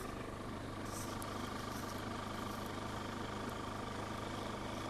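A steady low mechanical hum, like an engine idling, with a faint constant high whine over it.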